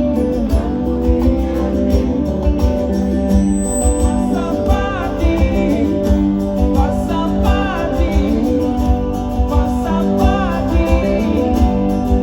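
Live band music with guitar: a steady beat under sustained chords, with a wordless gliding melody line over it between sung verses.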